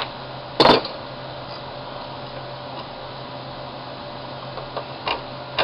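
A single sharp knock about half a second in, from hand tools working the reverse-threaded nut loose on the ice-carving tool's shaft. It sits over a steady low hum, and a few faint clicks follow near the end.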